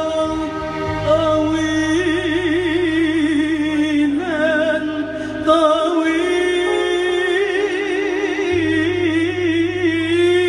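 A woman singing live into a microphone, holding long, ornamented notes on a vowel with a wide vibrato, over low held bass notes that change a few times.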